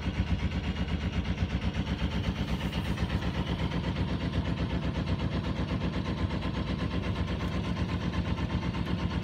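A sailboat's inboard auxiliary engine running steadily with an even, rapid chug, the boat motoring slowly.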